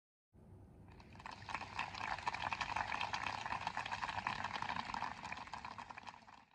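Audience applauding: many hands clapping, building up over about a second and then cut off suddenly near the end.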